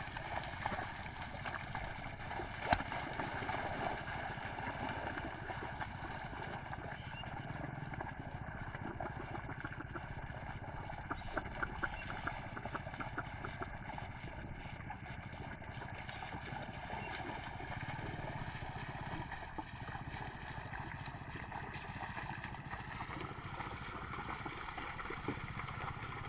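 A small engine drones steadily, and its pitch rises slightly about 23 seconds in. A single sharp knock comes about three seconds in.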